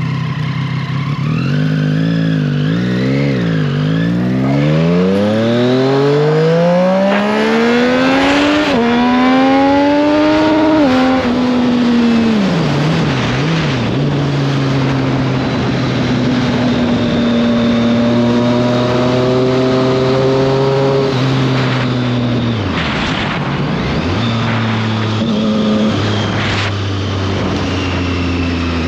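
Triumph Street Triple 765 RS inline-three engine under way: the revs wobble low, then climb in one long pull from about four to eleven seconds in and drop sharply, then hold steadier with a few dips and rises near the end.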